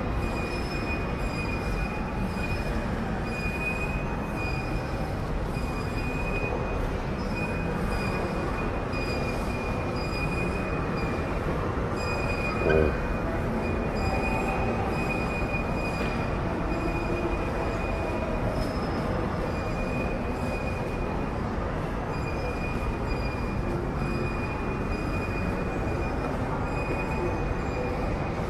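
Shopping-mall ambience: a steady low rumble of the building with a constant high whine over it, and one brief sharp sound about halfway through.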